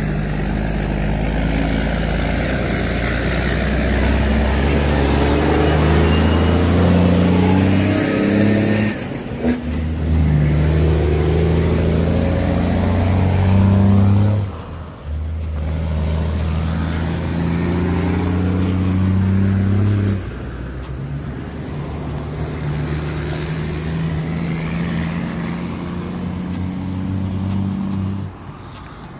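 Car engine accelerating hard through the gears. Its pitch climbs steadily and then drops sharply at each of three gear changes, before the engine eases off near the end.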